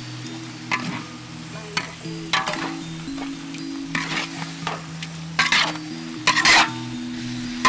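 Spatula stirring beef chunks in a large wok: sizzling, with about six sharp scrapes of the spatula against the pan, the loudest near the end. Soft background music with held low notes runs underneath.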